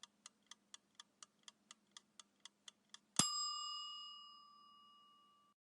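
Countdown timer sound effect: about thirteen clock ticks, four a second. Then a single bell ding rings out and fades over about two seconds.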